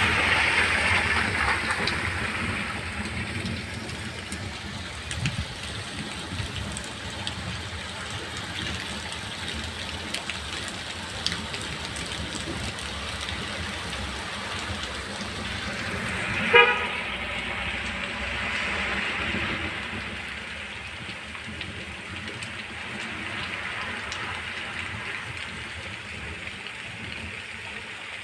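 Car tyres hissing on a rain-soaked street as a car passes, fading over the first few seconds, over a steady wash of rain and running water. A short car-horn beep about halfway through is the loudest sound, then another car swishes past on the wet road.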